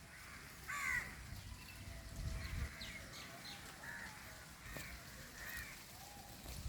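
Birds calling: one loud harsh call about a second in, then several shorter calls, over a low rumble.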